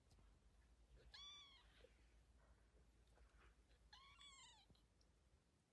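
A cat meowing faintly twice, one short rising-then-falling meow about a second in and another about four seconds in.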